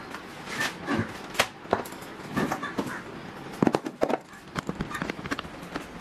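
Plastic containers and glass jars being taken out of a fridge and set down on a hard kitchen countertop: a run of irregular knocks and clatters, the sharpest about one and a half seconds in and again around three and a half seconds in.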